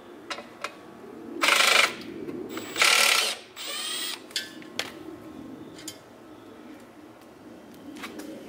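Cordless ratchet whirring in two short, loud bursts and a quieter third as it backs out the 10 mm bolts of a 1983 Honda ATC70's rear brake drum cover. Light clicks of socket, bolts and cover come between and after.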